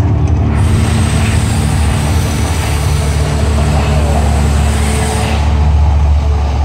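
Mirage volcano eruption show: a loud, deep, steady rumble, growing a little louder about five seconds in.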